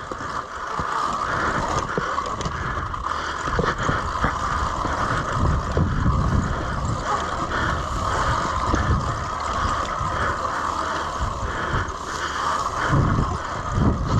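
Sur-Ron Light Bee electric dirt bike being ridden, its motor and drivetrain giving a steady whine, with wind buffeting the microphone in gusty low rumbles.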